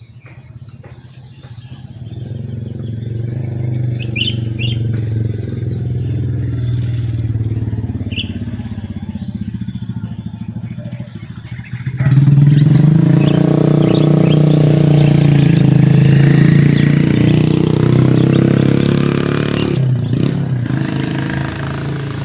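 An engine running steadily, with a single constant pitch; it gets suddenly louder and fuller about halfway through. A few short bird chirps sound in the first half.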